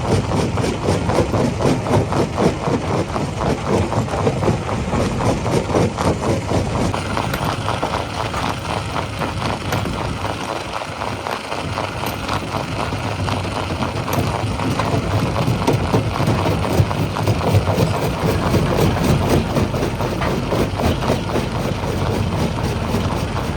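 Heavy rock-crushing machinery running, a steady loud mechanical din with a fast rattle and a low engine drone; the sound changes character about seven seconds in.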